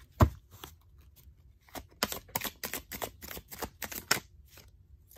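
Deck of tarot cards being shuffled by hand: a single thump about a quarter second in, then a quick run of sharp card clicks for about two and a half seconds that stops before the end.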